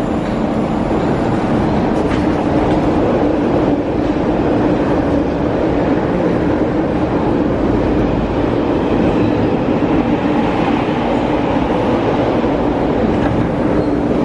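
MTR Tuen Ma Line electric train running through the station at speed without stopping: a loud, steady rumble with a steady humming tone.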